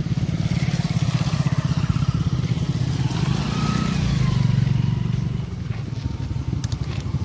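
Motorcycle engines running at low speed as the bikes ride past, a steady low engine beat that gets louder around four seconds in.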